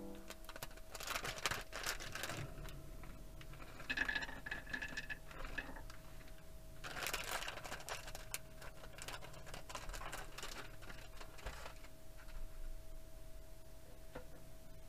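A plastic snack bag crinkling as nuts are tipped out and clatter onto a wooden plate, in three bursts of rustling with small clicks.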